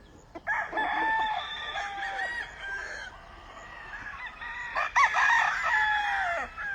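Several gamefowl roosters crowing in overlapping calls, with a fresh round of crows about five seconds in.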